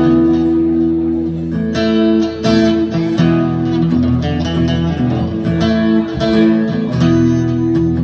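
Two acoustic guitars strumming chords together in a steady rhythm, an instrumental passage with no singing.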